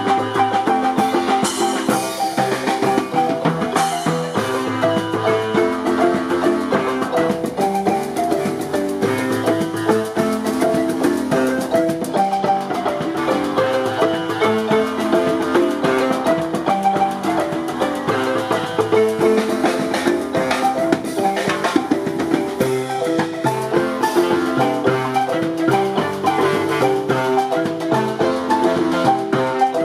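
A live marimba ensemble: several wooden marimbas played with mallets in fast, interlocking melodic lines, with a drum kit and cymbals keeping the beat.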